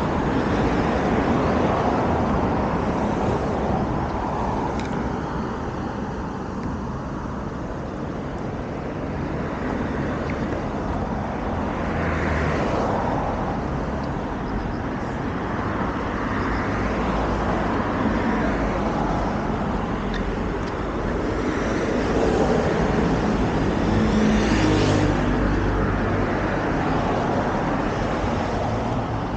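Road traffic noise from an adjacent road: a steady rush of passing cars that swells several times as vehicles go by.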